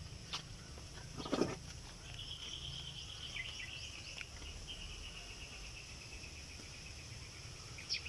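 Rural yard ambience: a steady high insect hiss, joined about two seconds in by a long, wavering high trill that slowly falls in pitch. A brief scuff sounds about a second and a half in.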